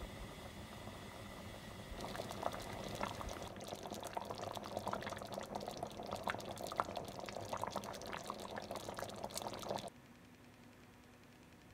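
Thick chicken rice porridge bubbling in a pot: a dense crackle of small popping bubbles. It starts up about two seconds in and cuts off abruptly near the end.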